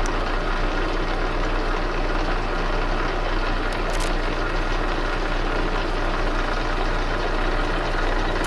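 Metal lathe running steadily with an even hum while a tool bit cuts a light chamfer on the corner of a spinning 3/8-inch brass bar. A faint tick comes about halfway through.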